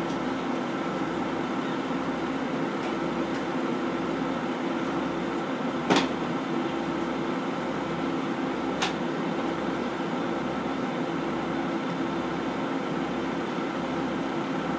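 Diesel engine of a KiHa 40 railcar heard from the seat directly above it, running steadily. A sharp click sounds about six seconds in and a fainter one about three seconds later.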